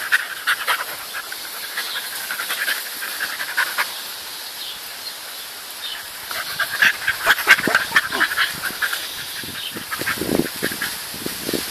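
Two dogs, a black dog and a small white terrier, play-fighting, with bursts of panting and quick breathing, heaviest in the first few seconds and again about seven seconds in.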